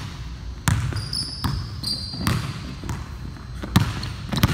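Basketball dribbled hard on a hardwood gym floor, a few irregular bounces with a hall echo, and two short high sneaker squeaks about a second in and just before two seconds in.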